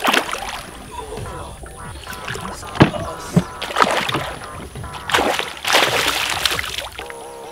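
A hooked giant snakehead thrashing at the surface beside a wooden boat as it is netted: a run of sudden splashes and slaps, the longest burst of splashing about six seconds in.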